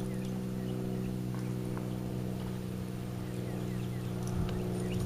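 A steady low motor hum, like an engine running nearby, with a few faint scattered hoof thuds in soft arena dirt.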